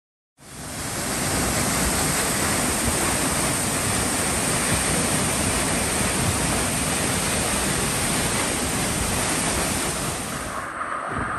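Steady rushing roar of a waterfall's falling water, fading up in the first second; near the end the high hiss drops away.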